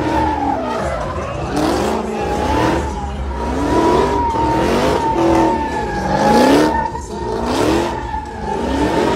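Supercharged 6.2-litre HEMI V8 of a Dodge Challenger SRT Hellcat Redeye revving up and down again and again, about once a second, as the rear tyres spin and squeal in a smoky burnout.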